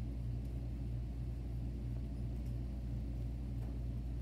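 Steady low electrical hum, a constant drone with a ladder of evenly spaced low tones, with a few faint ticks from a marker writing on a whiteboard.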